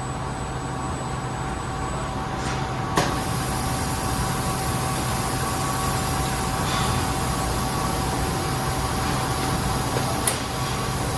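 Sheet-metal cutting machine running: a steady mechanical hum with a couple of steady whining tones, a sharp click about three seconds in and another near the end.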